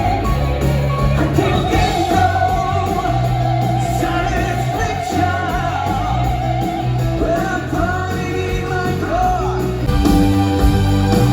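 Live stage musical performance: a singer holding long notes with vibrato over a band with bass and drums, swelling louder with guitar near the end.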